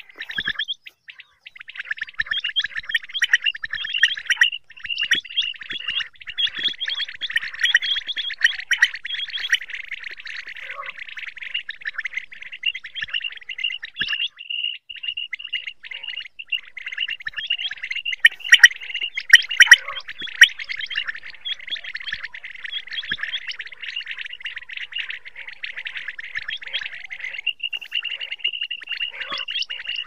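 Common quail calling over and over, a dense run of rapid chirps and trills, the kind of recorded quail call played to lure quail into nets. A few sharp clicks come about two-thirds of the way through.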